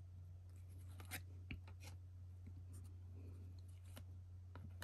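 Faint rubbing and light ticks of trading cards being slid and flipped through by hand, over a steady low hum.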